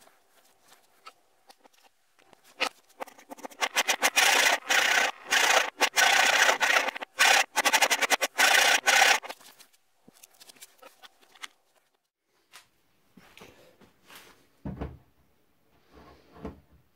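Hand file scraping across the end of a walnut axe handle in quick back-and-forth strokes, running hard from about two and a half seconds in to about nine seconds. After that come fainter scattered scrapes and a single dull knock.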